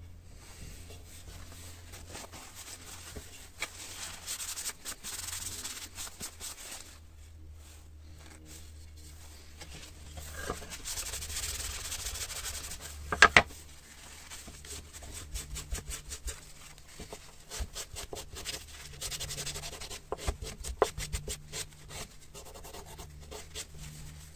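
A cloth rag rubbed back and forth over a wooden board, wiping yellow stain into the grain, in repeated scrubbing strokes. Two sharp knocks about halfway through are the loudest sounds.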